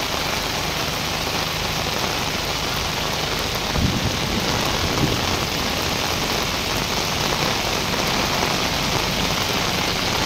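Heavy rain pouring down steadily, with two dull thumps about four and five seconds in.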